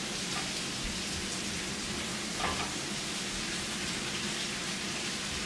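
Chicken and onions frying in a pan, a steady sizzle.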